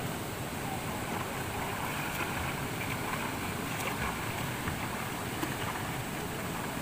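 Steady rush of flowing river water from the falls, with light splashing from a person swimming about midway through.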